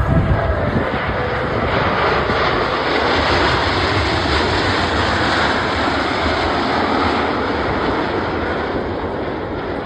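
Jet noise from the Snowbirds' Canadair CT-114 Tutor jets flying past: a loud, steady rushing roar that swells about two seconds in and eases off slightly near the end.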